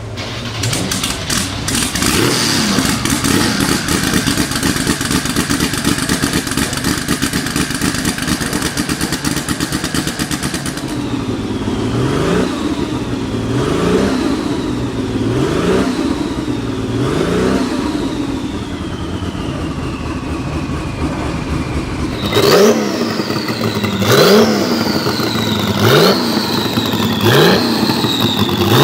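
Porsche 935 Kremer's turbocharged flat-six engine running steadily for about ten seconds, then blipped about every two seconds, each rev followed by a falling turbo whistle. From about twenty-two seconds in, each blip ends in a sharp bang: backfires from the exhaust.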